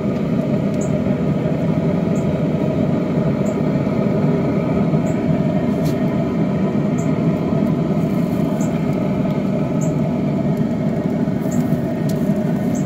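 Steady machine running noise, like a fan or motor, unchanging throughout, with faint short high ticks about once every second or so.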